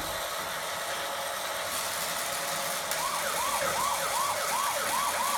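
Toy train's electronic siren-like sound effect: a warbling tone that rises and falls about two and a half times a second, starting about halfway through, over a steady hiss.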